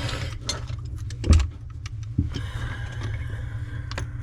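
Several short metal knocks and clicks from hand tools working on a faucet's rusted-on mounting nuts, over a steady low hum. The loudest knock falls about a second and a half in.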